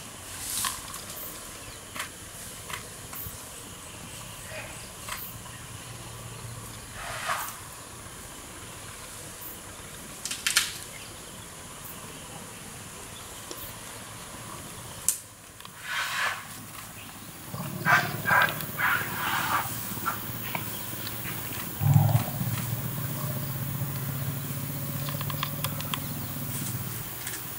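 Wild Asian elephant tusker feeding: short snaps and rustles of twigs and leaves as its trunk pulls at branches. In the last third a low, steady elephant rumble sets in and grows louder about 22 seconds in.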